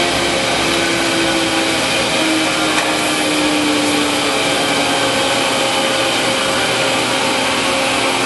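Monarch Model 62 heavy-duty engine lathe running with a steady mechanical whir. A tone within it falls slightly in pitch over the first four seconds as the machine is powered down after a test cut.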